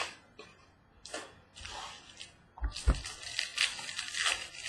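Foil wrappers of trading card packs crinkling and rustling as they are handled, with a sharp knock about three seconds in, then denser crinkling.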